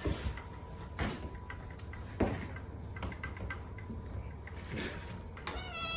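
A few sharp knocks and clicks, then near the end a kitten starts a high, wavering meow.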